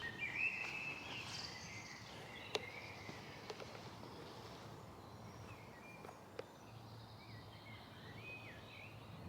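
Faint songbirds chirping in short, curving phrases, first near the start and again in the second half, over a quiet outdoor hiss, with a couple of sharp clicks.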